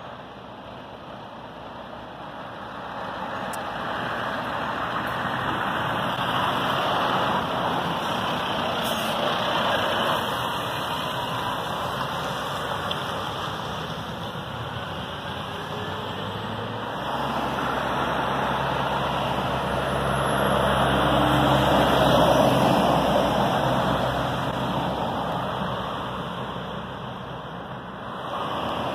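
Articulated lorries pulling away and driving past: diesel engine noise and tyre noise swell and fade as each goes by. A steady low heavy-engine hum joins about halfway through.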